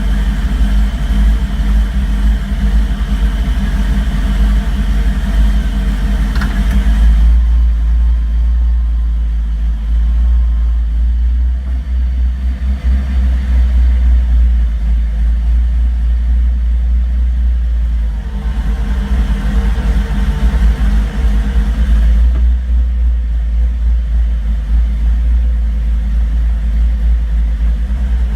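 Car engine idling roughly, a steady low rumble with an uneven beat. Its higher mechanical sound drops away about seven seconds in, comes back around eighteen seconds, and drops away again a few seconds later.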